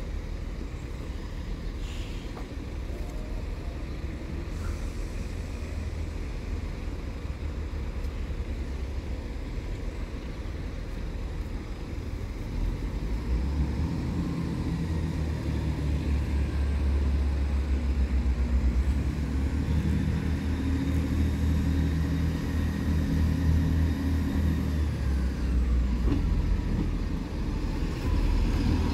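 Class 158 diesel multiple unit approaching the level crossing: a low diesel engine rumble that grows louder from about halfway through, over a steady background of wind and distant traffic.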